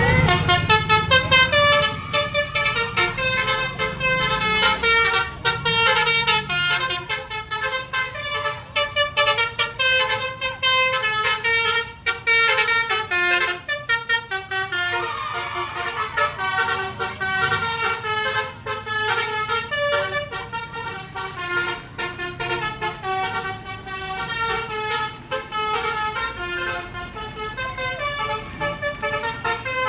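Indonesian bus 'telolet' musical horn (a Basuri multi-tone air horn) playing a quick tune of short notes that jump up and down, over and over without a break. A low engine rumble sits under the first few seconds.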